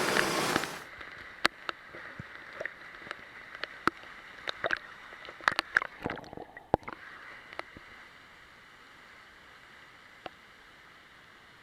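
Loud rushing water cuts off abruptly under a second in. Scattered small splashes and drips of water follow, thinning out after about eight seconds into a faint steady hiss.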